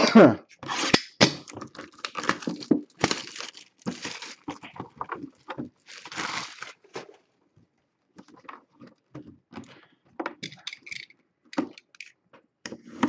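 Plastic shrink wrap being torn and peeled off a cardboard box: irregular crinkling and tearing, densest in the first half, then sparser clicks and taps as the box is handled.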